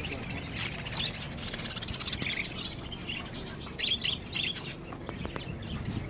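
A cage-full of budgerigars chirping and chattering: many short, overlapping chirps, busiest about four seconds in, over low steady background noise.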